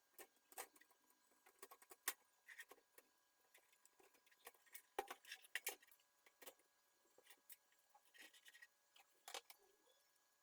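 Faint, irregular small clicks and light taps of computer parts being handled during a PC build, louder about two seconds in and again around five seconds.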